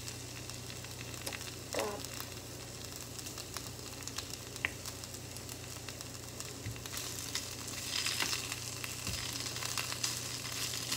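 Potato wedges sizzling as they fry in a non-stick frying pan, with a few light clicks of wooden chopsticks stirring them. The sizzling grows louder about eight seconds in.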